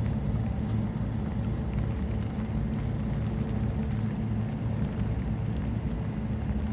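Steady low hum of a ventilation fan, with faint scattered ticks of rain.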